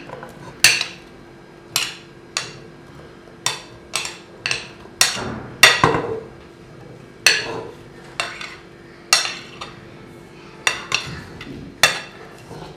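A metal spoon knocking against a plate as chopped potato and vegetable pieces are pushed off into a steel pot: a string of sharp clinks, one or two a second at irregular spacing.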